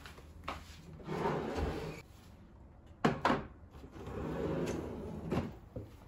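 A kitchen drawer sliding on its runners, with sharp knocks as it is pulled open and pushed shut. It slides twice, with clunks between and at the end.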